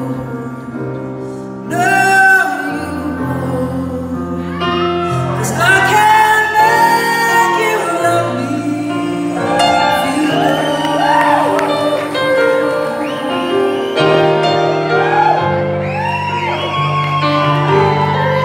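A woman singing a slow ballad live, her voice wavering on held notes, over sustained keyboard chords, with the echo of a large hall.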